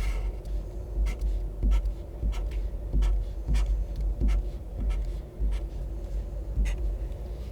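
Felt-tip highlighter drawn across paper in repeated strokes, about one and a half a second, each a short scratchy swipe with a soft knock from the pen and paper.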